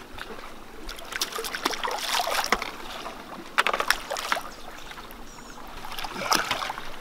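Water splashing in three short bursts as a hooked catfish thrashes at the surface on a trotline.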